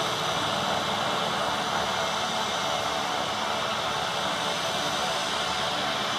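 Cessna Citation M2 business jet's twin turbofan engines running at taxi power: a steady whine over a rushing noise.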